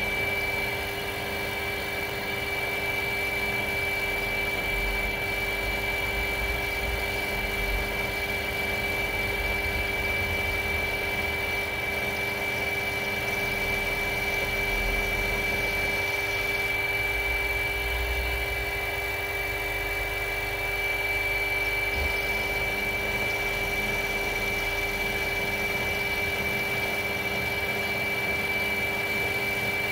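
Mini milling machine running with a steady high whine from the spindle drive while an end mill cuts an arc in metal plate, with a low, uneven rumble from the cut and the turning rotary table.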